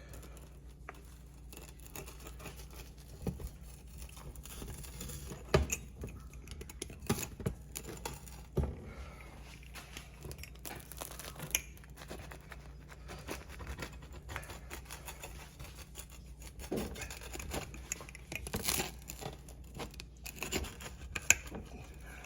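Freshly baked pizza being handled: irregular crackling, tearing and scraping noises with a few light knocks, the sharpest about five seconds in and near the end.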